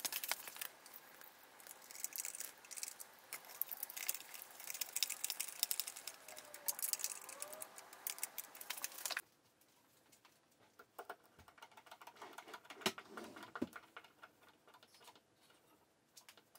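Hand screwdriver driving screws through metal fittings into furniture panels: dense, rapid clicking and scraping of screw and hardware. About nine seconds in the level drops sharply, and fainter clicks and a few light knocks follow as a drawer runner is screwed on.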